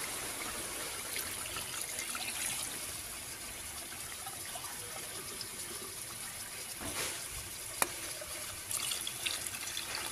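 Hot water being poured from a mug into an aluminium pot of braised mutton curry, running and splashing into the meat and spice mixture, with a sharp knock about eight seconds in.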